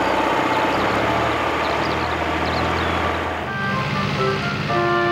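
A motor vehicle's engine running: a broad rumble with a steady low hum. About three and a half seconds in it gives way to music with long held notes.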